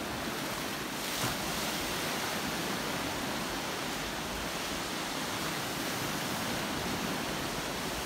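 Black Sea waves rushing and splashing against a concrete shore edge: a steady surf noise, with a slightly louder splash a little over a second in.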